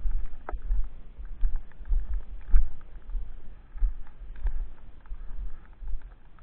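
Footsteps through snow: irregular low thumps about once or twice a second with small clicks, as the walker's steps jolt the microphone.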